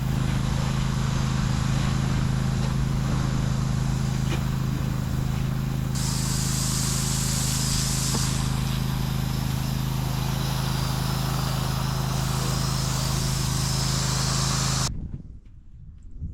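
Pressure washer running, its engine giving a steady hum under the hiss of the water spray. The spray gets brighter and louder for a couple of seconds about six seconds in, and everything cuts off abruptly near the end.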